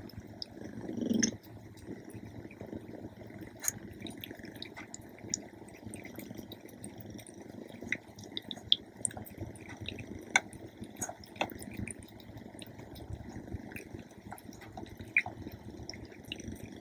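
A cat eating moistened freeze-dried fish morsels from a bowl: quiet, wet chewing and licking with many scattered small clicks and ticks, and a brief louder low sound about a second in.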